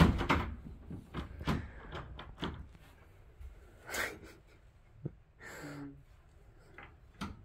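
Scattered knocks and clicks of cabin furniture being handled: the fold-out desk and fittings around the bed. A short breathy sound comes about five and a half seconds in.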